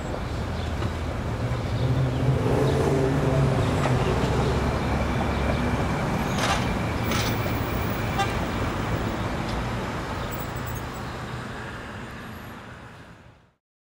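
City street traffic: cars running past with a low rumble and a horn tooting about halfway through. The traffic fades out near the end.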